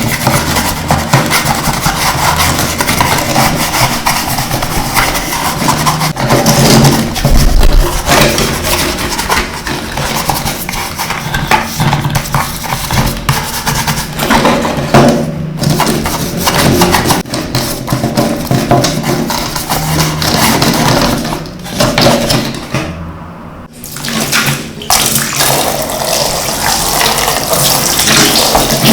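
Running water splashing steadily, as in rinsing, with a few short breaks in the second half.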